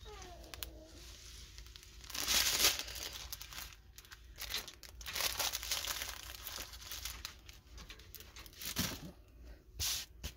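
Plastic packaging rustling and crinkling in irregular bursts as the diamond painting kit's sealed drill bags and plastic-film-covered canvas are handled and smoothed flat; the loudest burst comes about two seconds in.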